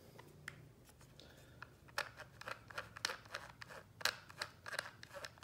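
Plastic gear train of a Shark robot vacuum's drive wheel turned by hand, giving faint, irregular clicking and grinding that comes thicker from about two seconds in. The grinding is a sign that the plastic gear housing may be worn and the two top gears are not meshing.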